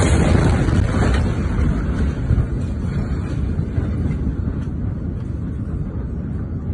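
Low, dense rumbling roar of a huge explosion's aftermath, with no clear tones, slowly easing off.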